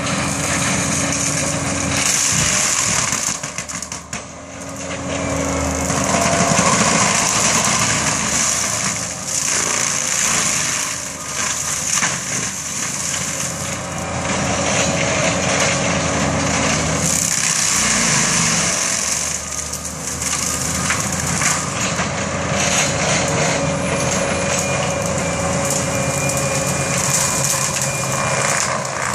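Forestry mulcher on a Bobcat skid-steer running hard, its engine drone mixed with the drum grinding up brush and saplings. The level drops briefly about four seconds in.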